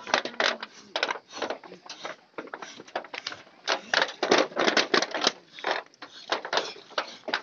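Knife scraping the charred, singed skin of a pig carcass in quick, irregular strokes, several each second, to clean it.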